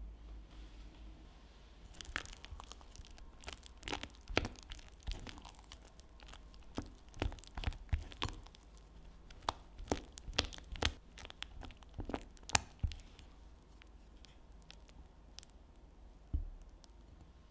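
Silicone spatula folding and scraping thick whipped coffee mascarpone cream in a glass bowl: irregular sticky squelches with light clicks and scrapes against the glass, busiest between about two and thirteen seconds in. One dull thump near the end.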